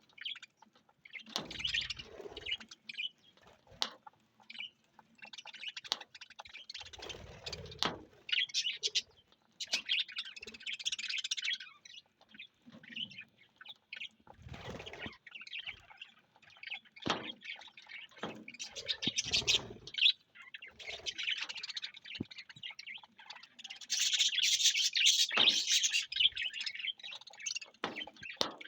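A colony of budgerigars (budgies) chirping and warbling in an aviary, many birds chattering in overlapping bursts, busiest near the end. A few sharp clicks and knocks come between the bursts.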